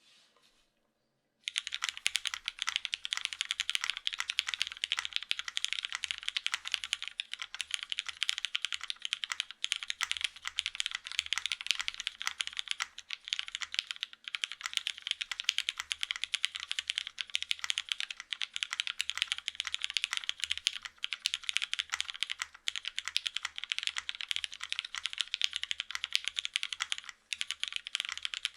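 Continuous fast typing on a Matrix 2.0 ADD VKG mechanical keyboard: a top-mounted forged carbon fiber plate, lubed and filmed vintage Cherry MX Black switches and GMK keycaps. The typing starts about a second and a half in.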